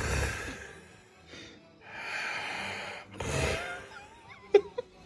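A sleeper's snoring breaths sounding through a harmonica held in the mouth: reedy harmonica chords on one breath alternate with rasping snorts on the next, about one breath cycle every three seconds. Two short, sharp squeaks come near the end.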